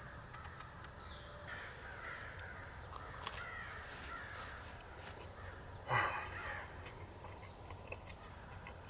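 Outdoor bird calls: a run of calls in the first few seconds, then a single louder call about six seconds in.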